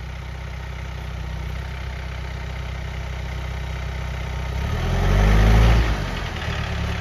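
John Deere 4044R compact utility tractor's diesel engine running steadily at low speed, then revving up for about a second near the end before dropping back.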